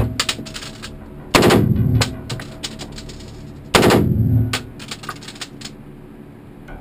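M16 rifle fired on full automatic: two short bursts, each about half a second long, roughly two and a half seconds apart, with fainter single shots in between.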